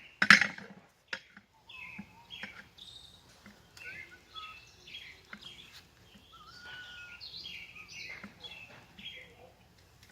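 A hammer blow on the steel lock ring of a split-rim wheel just after the start, ringing briefly, followed by a faint knock. Birds chirping and whistling through the rest.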